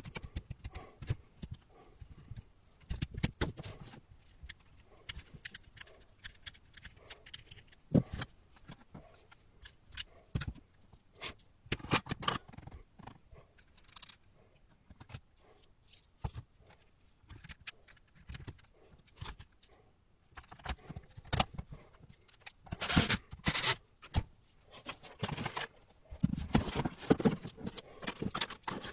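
Quick clicks, taps and light scrapes of hands handling the metal gearbox and plastic housing parts of a Parkside jigsaw during reassembly, with a busier run of louder knocks near the end.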